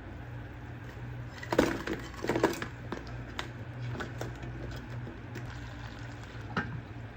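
Kitchen utensil clinking and scraping against cookware several times, loudest about one and a half to two and a half seconds in, over a steady low hum.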